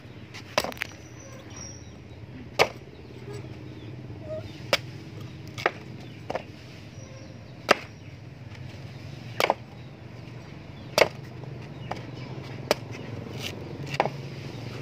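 A billhook machete, forged from a chainsaw guide bar, chopping into a green coconut's husk: sharp single chops roughly every one to two seconds, a few of them coming in quick pairs.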